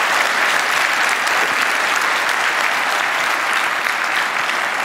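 Audience applauding: a steady, dense wash of clapping.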